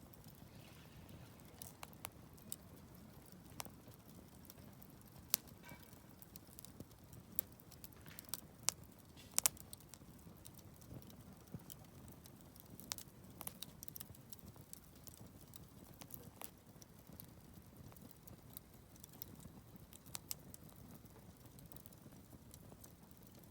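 Wood campfire crackling faintly, with irregular sharp pops and snaps, the loudest about five and nine seconds in, over a soft low rustle of the burning fire.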